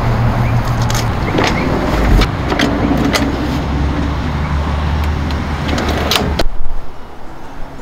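Jeep driving: steady engine and road noise with scattered knocks and rattles. The engine hum drops lower about two seconds in, and the sound cuts off suddenly about six and a half seconds in.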